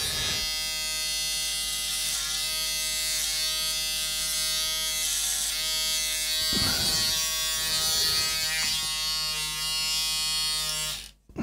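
Budget cordless hair trimmer running with a steady, noisy electric buzz as it is passed over arm hair. The buzz roughens briefly about two-thirds of the way through, where the blades meet the skin and hair, and cuts off near the end as the trimmer is switched off.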